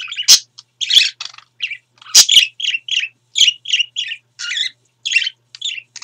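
Pet budgerigars (parakeets) chattering in a quick run of short, high chirps, about three or four a second. Two sharp clicks come about a quarter second in and just after two seconds.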